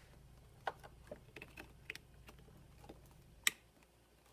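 Small plastic clicks and rattles of the amplifier's wiring-harness plug being handled and pushed into its connector, with one sharp click about three and a half seconds in.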